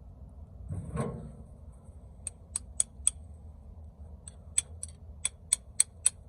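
A hammer tapping a 1/4-inch punch to drive the worn pin out of a 1984–1988 Toyota pickup's tailgate hinge: about a dozen short, sharp metallic taps, a few a second, starting about two seconds in. A duller knock comes about a second in.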